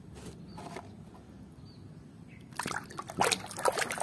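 Muddy water in a plastic basin splashing and dripping as a hand rummages through it; fairly quiet at first, then a busy run of small splashes from a little past halfway.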